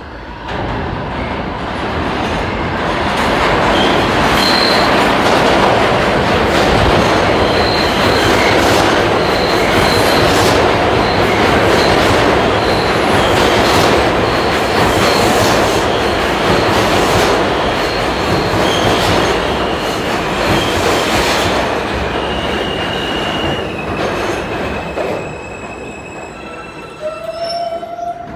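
New York City Subway R160 train pulling into an underground station: a loud rumble of steel wheels on the rails builds over the first few seconds, with short high wheel squeals through the middle. It eases off as the train slows, with steady high tones and then a rising tone as it comes to a stop near the end.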